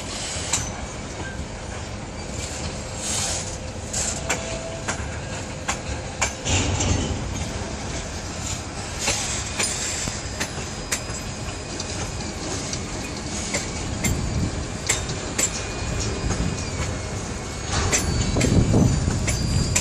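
Freight train boxcars rolling past, wheels clicking irregularly over the rail joints over a steady rumble. Thin, high wheel squeal comes in during the second half, and the rumble grows louder near the end.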